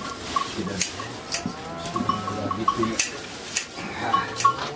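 Sheep bleating in the shearing pen, with quick runs of short clinks.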